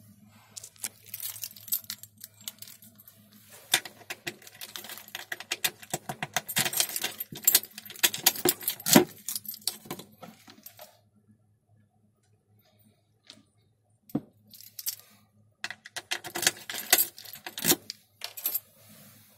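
A locker key on a coiled wristband jangling and clicking around a small metal lock, in two spells of rattling separated by a few seconds' pause.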